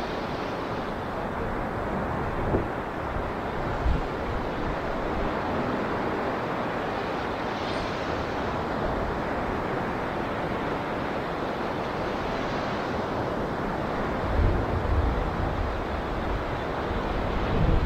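Ocean surf breaking and washing up on a beach: a steady rush that swells every several seconds as each wave comes in, with a few low thumps along the way.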